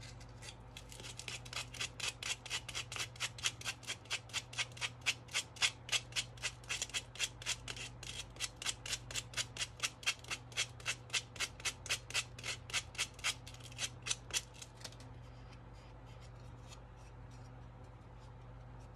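80-grit sandpaper rubbed up and down in quick scratchy strokes, about four a second, sanding excess Mod Podged fabric off the edge of a jar sign. The strokes stop about 15 seconds in.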